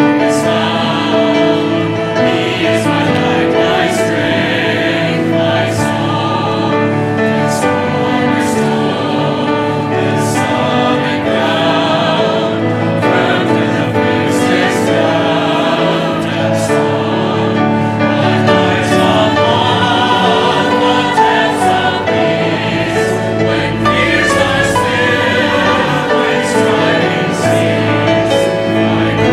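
Mixed church choir of men's and women's voices singing an anthem with keyboard accompaniment, holding sustained notes.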